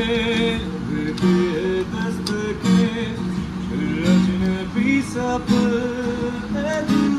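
Acoustic guitar strummed in chords, with a wavering sung melody over it.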